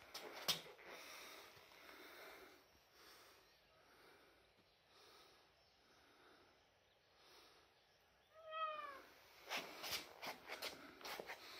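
A domestic cat gives one short meow about eight and a half seconds in, over faint rhythmic heavy breathing about once a second from a person who is out of breath. Clicks and rustles of handling follow near the end.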